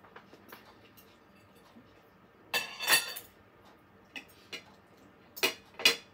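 Metal fork and spoon clinking and scraping on a ceramic dinner plate during eating: a loud cluster of clinks about halfway through, then a few single clinks near the end.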